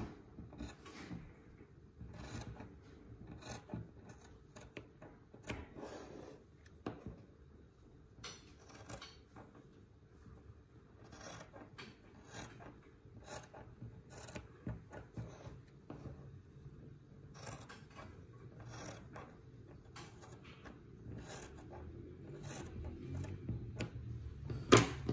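Scissors snipping through a stocking to cut it into strips for elastic ear bands: a string of short, irregular cuts with fabric rustling between them, and one sharper snip near the end.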